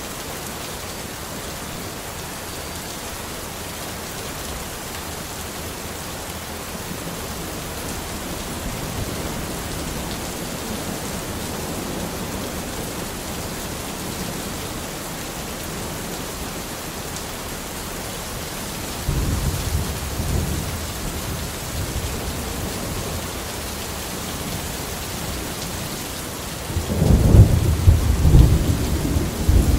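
Thunderstorm: steady heavy rain with rolling thunder. A low rumble of thunder comes about two-thirds of the way in, and a louder, deeper peal near the end.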